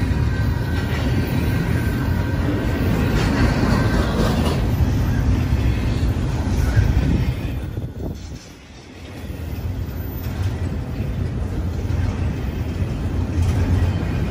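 Double-stack container cars of a freight train rolling past on the rails, a steady loud rumble and rattle of wheels and cars. The sound drops away for about a second around eight seconds in, then returns.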